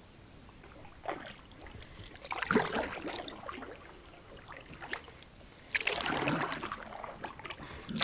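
Canoe paddle strokes in calm lake water: three swishes of water, about a second in, near the middle and again a little later, with dripping and trickling between them.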